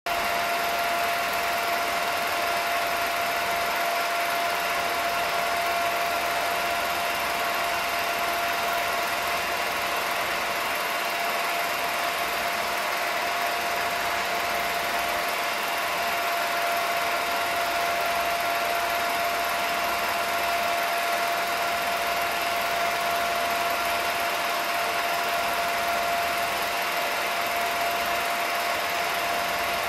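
Film projector running steadily: an even motor whir with a constant high whine.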